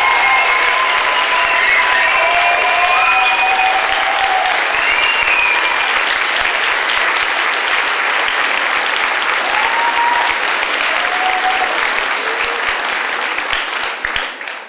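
Audience applauding steadily, with a few cheering voices and whoops rising above it, fading out near the end.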